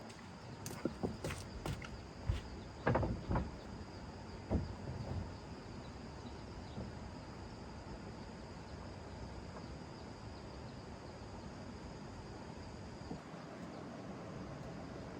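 Steady insect chirring in the background, with a scatter of short knocks and clicks during the first few seconds.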